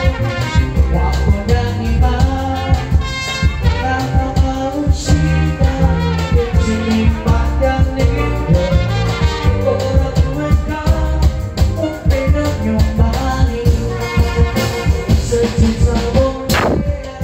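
Live band music with a steady beat and heavy bass: electronic keyboard and hand drums, with a singer's voice at times. A single sharp hit comes near the end.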